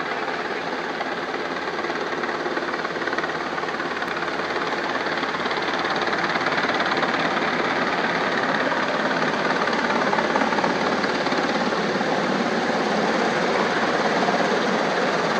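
UH-60 Black Hawk helicopter running, its rotors and twin turboshaft engines making a steady, loud mechanical noise that grows gradually louder about halfway through.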